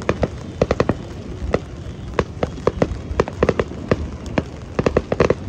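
Fireworks exploding: a rapid, irregular string of sharp bangs, several close together, over a low rumble.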